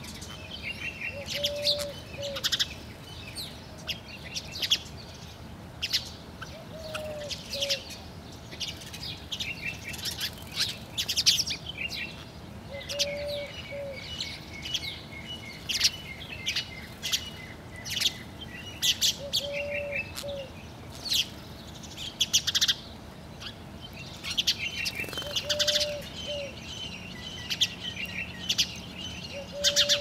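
House sparrows chirping busily, many short, sharp chirps overlapping, with a quick chattering run about halfway through. A low cooing note sounds about every six seconds beneath them.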